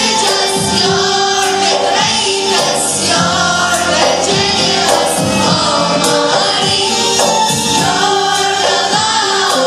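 Youth choir singing together with a female lead voice at the microphone, accompanied by an oud and a keyboard, with a regular beat underneath.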